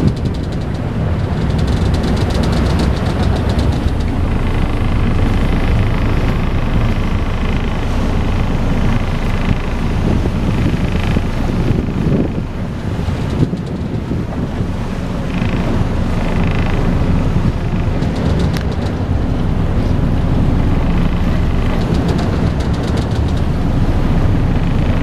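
Boat engines running steadily at speed, a deep rumble with wind buffeting the microphone.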